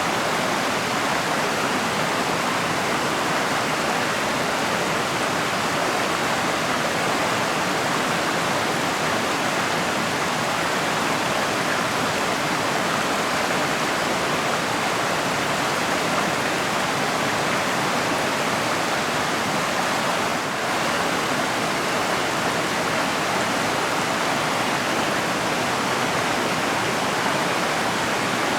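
Mountain river rushing steadily over rocks, a dense even roar of flowing water.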